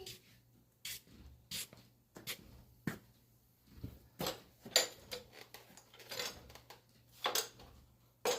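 Irregular light clicks and knocks of tools and parts being handled and set down, about one every half second to a second, with a louder knock near the end.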